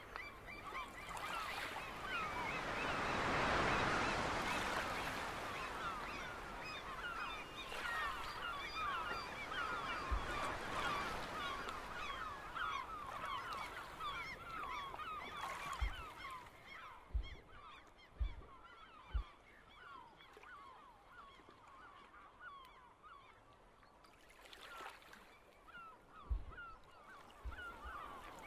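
Background ambience of a flock of birds calling without pause, many short honking calls overlapping, with a rushing swell of noise about three to four seconds in and a few soft low thumps later on.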